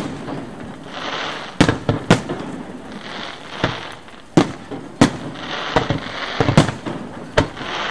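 Aerial firework display: about ten sharp shell bursts at irregular intervals, some in quick pairs, with a steady hiss and crackle between them.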